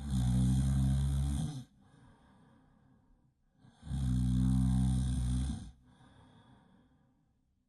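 Loud snoring: two long snores about four seconds apart, each a deep rattling inhale with a hiss over it, with much softer breathing between them.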